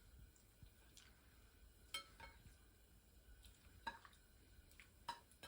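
A few faint clinks and taps of kitchen dishes and utensils, a second or two apart, one of them ringing briefly, over near silence.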